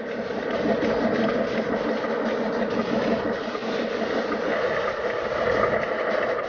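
Steady engine idling sound of a scale RC Scania 8x4 recovery truck, an even drone without revving.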